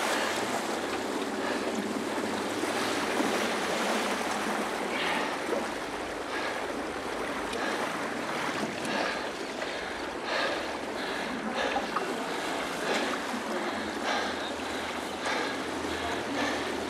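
Steady rush of water past a K-1 sprint racing kayak, with the paddle blades splashing into the water in a regular stroke rhythm. The strokes stand out more clearly from about five seconds in, a little under two a second.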